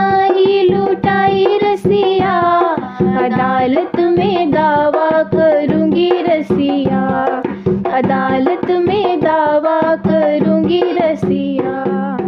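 Indian folk song music for a nakta geet: dholak-style hand-drum strokes in a quick, steady rhythm under a wavering melodic line and a steady low drone.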